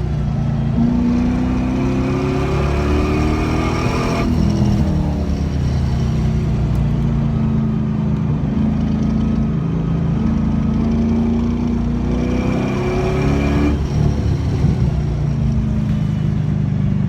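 LS1 V8 in a BMW 318ti pulling hard on track. Its note climbs in pitch for a few seconds and drops suddenly a little after four seconds. It holds fairly steady, then climbs again and drops suddenly near the end.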